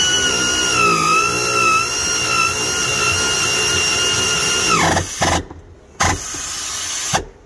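Pneumatic air ratchet running a socket on a long extension to drive down a seat-lift bracket bolt: a steady, high whine for about five seconds that dips slightly in pitch early on and then winds down. About a second later comes a shorter burst of noise without the whine.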